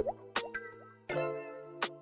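Background music: sustained pitched chords struck about every second and a half, with sharp percussive clicks between them and a short rising plop-like blip near the start.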